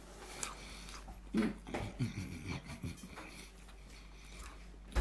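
A man chewing and breathing through his mouth as he eats fries with his hands, making short uneven mouth noises. A sharp click from the metal plate comes near the end.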